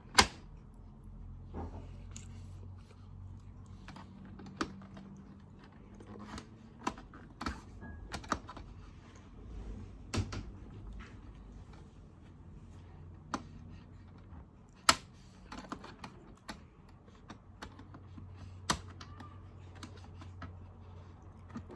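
Irregular sharp clicks and taps of tweezers against the plastic pieces and board of an Operation-style game as pieces are picked out, the loudest click right at the start. A faint steady low hum runs underneath.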